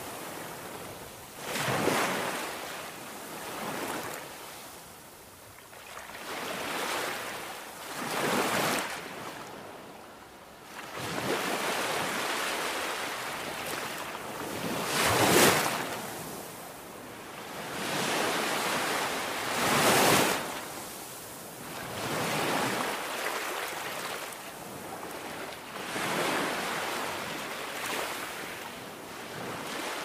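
Sea surf breaking and washing over coastal rocks, a rushing noise that swells and falls every few seconds, loudest about halfway through.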